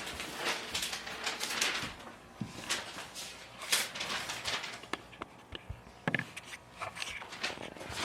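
Cardboard box and plastic packaging being handled, rustling and scraping irregularly as a large animatronic is worked out of it, with a few sharp clicks and knocks.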